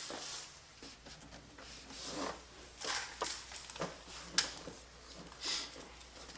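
Faint rustling and scattered light clicks of parts and wiring being handled, with one sharper click about four and a half seconds in and a longer swish near the end.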